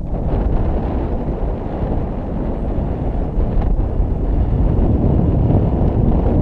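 Wind buffeting an action camera's microphone on an exposed summit: a loud, steady low rush with no let-up.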